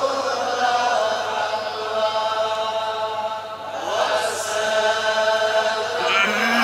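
Devotional verse chanted in Kashmiri in long, drawn-out held notes, with a few sliding ornaments between them.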